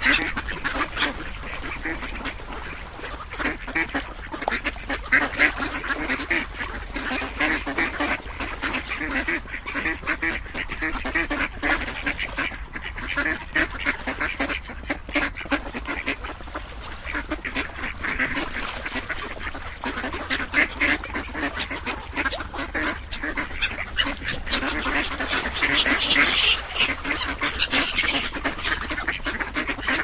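A flock of ducks quacking continuously, with many calls overlapping.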